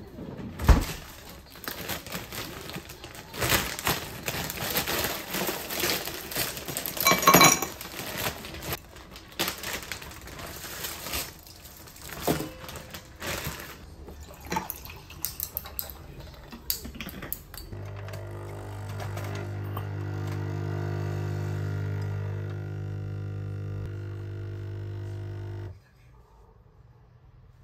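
Ice cubes clinking into a glass and water poured over them, then a capsule coffee machine's pump buzzing steadily for about eight seconds as it dispenses coffee, cutting off suddenly near the end.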